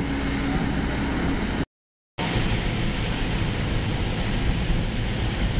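Steady engine and road noise of a moving shared taxi van, heard from inside the cabin. The sound cuts to silence for about half a second roughly two seconds in, then the same noise resumes.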